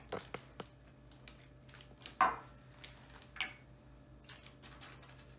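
Handling sounds while dry ingredients are tipped into a plastic zip-top bag: a few light clicks, then two short rustles of the bag about two and three and a half seconds in.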